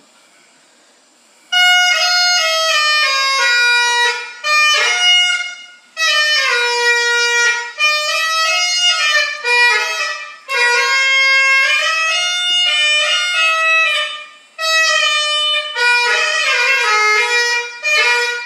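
Dog howling in a string of long, wavering howls that slide up and down in pitch, broken by short pauses. It starts a second and a half in and stops near the end.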